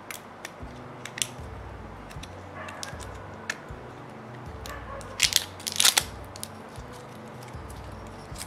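Plastic clicks and cracks of a dropper cap being twisted open on a glass e-liquid bottle, with a loud cluster of cracks a little past halfway.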